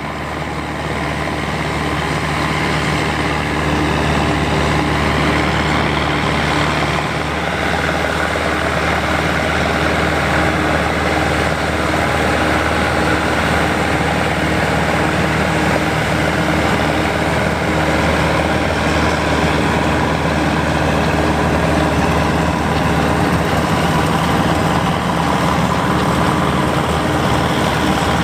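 A John Deere 3020 tractor engine working steadily under load as it pulls and drives a John Deere 9501 pull-type combine, whose threshing works add a steady mechanical rush to the engine's hum.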